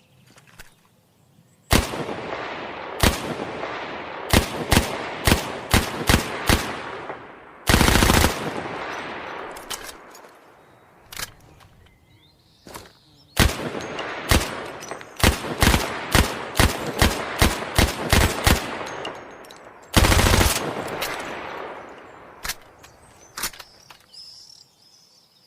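Thompson M1921 .45 ACP submachine gun firing strings of single shots and two short full-auto bursts, each shot followed by a long echo. Quieter metallic clicks come between the strings and near the end: the gun being reloaded.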